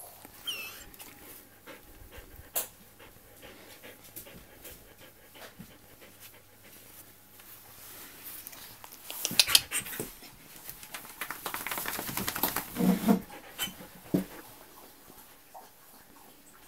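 A dog panting close to the microphone, in louder runs about nine seconds in and again from about eleven to thirteen seconds, with faint clicks in between.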